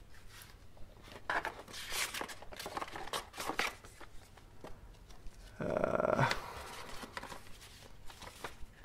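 Paper leaflets and card inserts rustling and crinkling as they are handled and unfolded, in soft scattered bursts, with one short louder sound about six seconds in.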